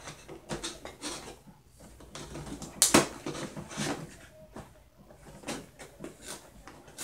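Cardboard tea-bag box being torn open along its top flap: scattered cardboard scrapes, rustles and clicks, with one sharp crack about three seconds in.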